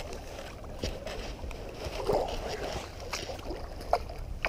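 Water splashing in short bursts as a hooked brown trout thrashes at the surface beside a landing net, with a few sharp clicks, over a steady low wind rumble on the microphone.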